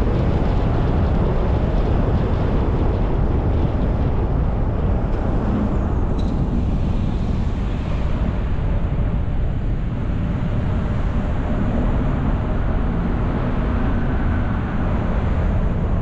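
Steady low rumble of road and wind noise from a car driving, with no change in pace.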